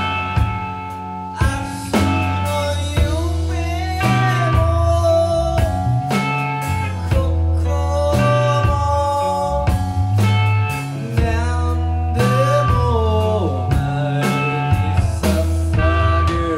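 Live rock band recording, psychedelic and bluesy: drums keep a steady beat under a pulsing bass line, and an electric guitar or voice carries a lead line that bends up and down in pitch.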